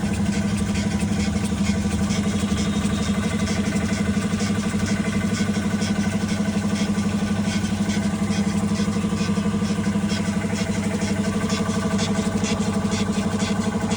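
Car engine idling steadily, with light short ticks repeating a few times a second over the engine hum.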